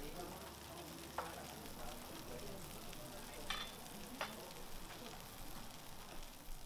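Food frying with a faint steady sizzle, and three short clinks of kitchen utensils or dishes.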